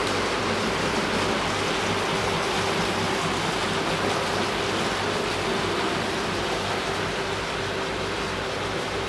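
OO gauge model locomotive running on its track: a steady rushing noise with a constant motor whine and a faint low pulsing.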